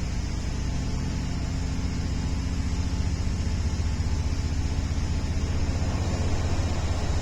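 Steady running noise of a passenger train heard from inside the carriage: a low rumble with a faint hum that fades out a couple of seconds in.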